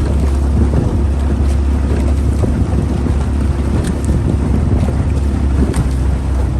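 Strong wind buffeting the microphone over the steady low hum of a boat's motor.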